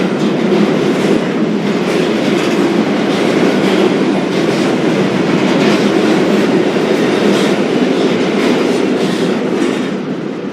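Freight train rolling along the rails: a steady rumble and rattle of wagons with wheel clatter, growing quieter near the end.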